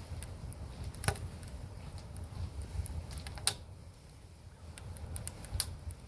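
Wood fire crackling in a wood stove: irregular sharp pops and small ticks over a low, steady rumble, with three louder pops about a second in, midway and near the end.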